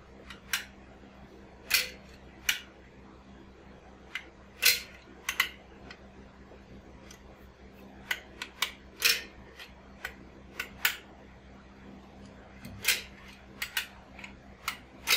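Manual caulking gun clicking as its trigger is squeezed to push out construction adhesive. The sharp, short clicks come at uneven intervals, sometimes two or three close together.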